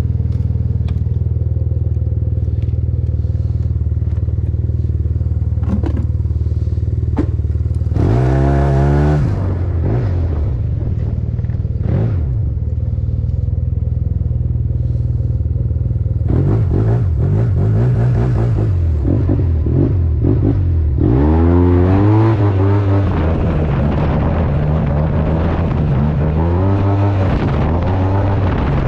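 Yamaha TMAX 530 maxi-scooter's parallel-twin engine, running on a freshly fitted Malossi variator with 14-gram rollers. It idles steadily, then revs up and falls back once about eight seconds in, and then several more times in the second half.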